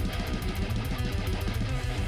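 Background music: guitar-based instrumental with a steady beat and a bass line.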